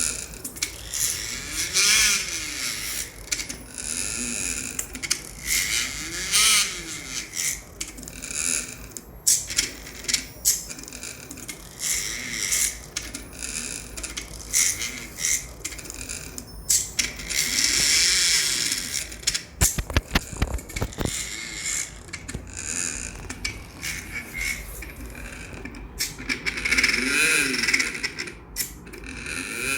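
CNC pen plotter's stepper motors whining as the pen carriage moves, the pitch rising and falling with each stroke, with scattered clicks and scratchy noise and a quick run of clicks about twenty seconds in.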